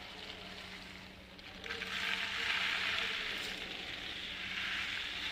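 A dried ridge gourd (luffa) shaken so that the loose dry seeds inside rattle with a dense, hissing, shaker-like sound, starting just under two seconds in.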